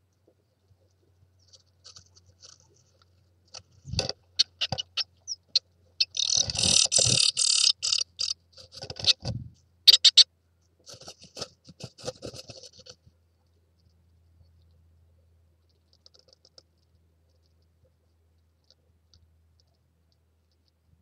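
A great tit shuffling in its nest cup, its body and claws scratching and rustling the moss and hair lining in irregular bursts with a few soft bumps. The rustling starts about four seconds in, is busiest in the middle, and dies away after about thirteen seconds.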